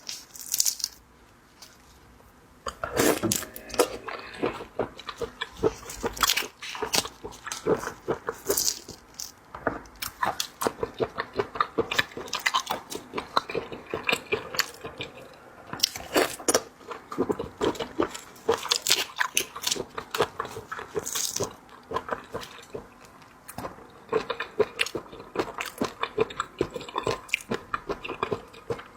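Close-miked eating of seafood: chewing and crunching as a dense, irregular run of short clicks, starting about three seconds in.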